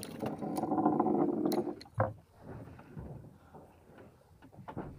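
A muffled rumble for about the first two seconds, with sharp knocks and clicks of handling on a wooden fishing boat, then quieter scattered knocks.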